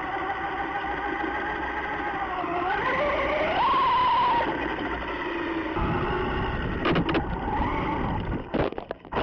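Traxxas Rustler electric RC truck driving through shallow water: its motor and drivetrain whine, rising in pitch about three seconds in and dropping again, over the steady hiss of water spraying off the tyres. A few sharp knocks near the end.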